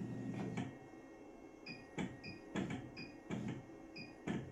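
Keypad of a Sakura Stitch programmable sewing machine's control panel being pressed: about four short electronic beeps mixed with several sharp button clicks. A low electrical hum from the machine stops under a second in.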